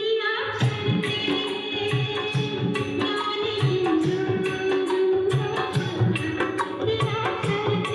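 Indian film music with drum percussion, played back through an Ahuja 4040-S stereo amplifier and heard off its loudspeaker.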